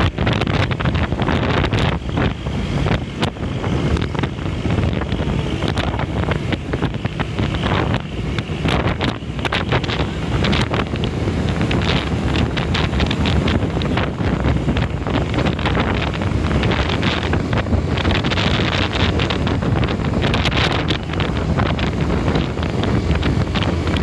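Intercity night bus on the move: engine and road noise with rattles, wind buffeting the microphone.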